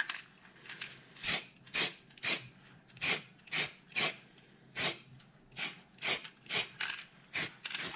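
Aerosol spray paint can hissing in about fifteen short bursts, roughly two a second, as black paint is dusted on in light passes around the edges of a small badge.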